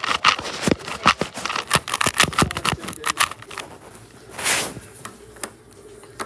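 Quick, irregular run of plastic clicks and clacks from a clear plastic Rubik's cube being turned and handled, followed about four and a half seconds in by a short rushing noise and one last click.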